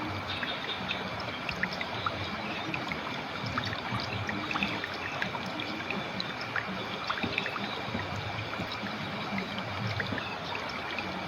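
Clear, shallow river flowing steadily, with a continuous rush broken by many small splashes and gurgles.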